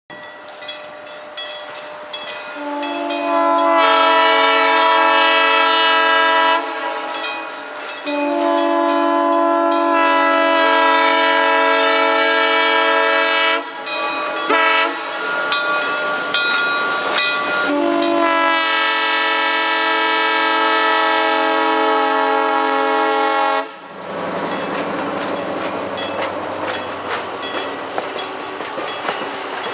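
Locomotive multi-chime air horn sounding the grade-crossing signal: two long blasts, a short one, then a final long blast. After that, passenger cars roll past close by, with a low rumble and rapid wheel clicks over the rail joints.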